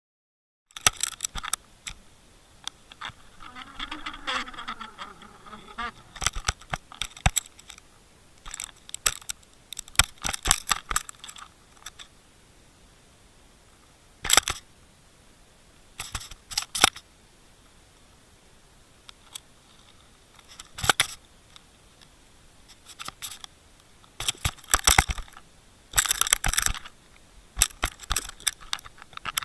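Irregular clicks, knocks and rattles picked up through an underwater camera housing, the fishing line and swivel of the live-bait rig knocking against it, coming in clusters with a short wavering tone about four seconds in.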